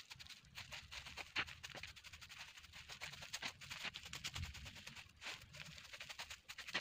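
A stick raked and scraped over dry dirt and debris, making a quick, dense run of scratching and small clicks.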